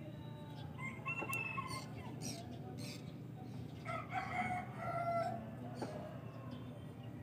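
Rooster crowing twice, the second crow lower and longer than the first, over a steady low background hum.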